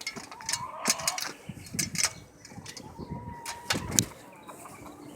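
Hens making soft calls while they come to fresh feed, with scattered knocks and clicks.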